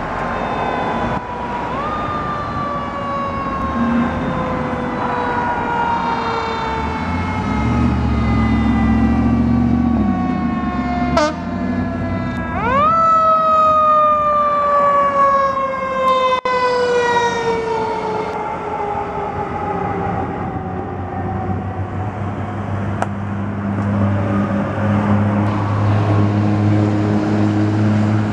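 Fire engine's mechanical siren, typical of a Federal Q, winding up quickly twice and then coasting slowly down in pitch each time, over the drone of engines and traffic.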